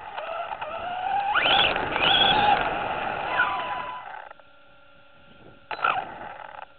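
Electric motor of an Arrma Vorteks RC truck whining, its pitch climbing sharply as the truck accelerates twice and then sliding down. It goes quiet for a moment and gives a brief rise near the end.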